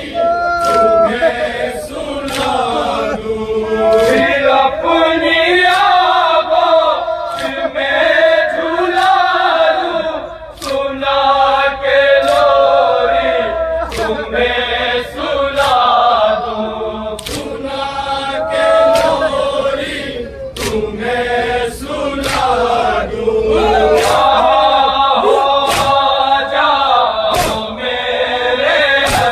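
Men's voices chanting a nauha, a Shia mourning elegy, in chorus, over a steady beat of sharp strikes about once a second.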